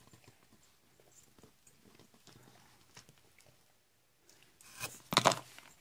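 Faint clicks and scrapes of the small metal parts of a Kensington tubular laptop lock being handled and fitted back together, with a short louder burst of noise about five seconds in.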